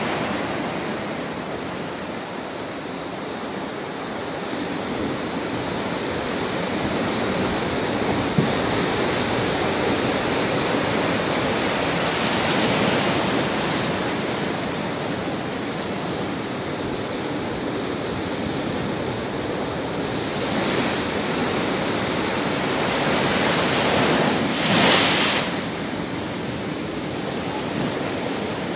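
Heavy storm surf on a rough sea, waves breaking continuously against a pier, with wind on the microphone. The noise swells at times, with the loudest wave crash near the end.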